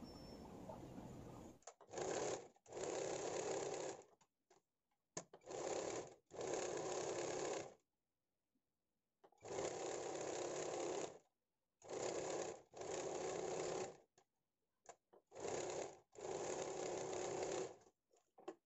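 Sewing machine stitching a seam in about nine short runs of one to two seconds each, starting and stopping with brief pauses between them.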